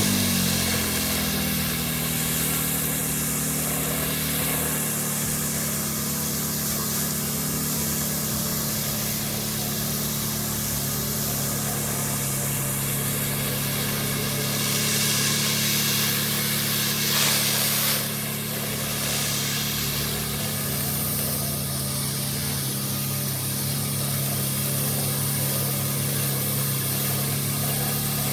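A pressure washer's engine running steadily under the hiss of high-pressure water blasting a tarmac driveway. The spray hiss swells and fades as it moves, with a brief louder rush about two-thirds of the way through.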